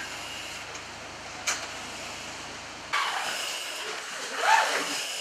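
Fire engine idling with a steady low rumble and a single click about one and a half seconds in. About three seconds in the rumble stops and a quieter indoor sound follows, with a short breathy rise and fall near the end as the loudest moment.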